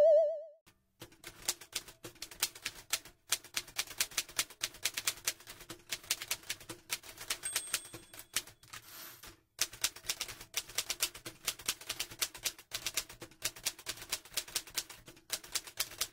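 Typewriter keys clattering in quick, irregular runs, broken by short pauses and one longer pause about halfway through. A wobbling electronic tone fades out in the first half second.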